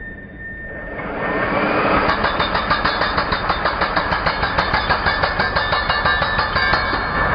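INGCO 16 kg concrete breaker starting up about a second in and then hammering steadily with a fast, even run of strokes.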